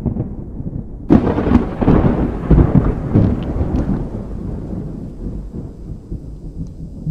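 A thunderclap cracks about a second in and rumbles away over the next few seconds, over steady rain.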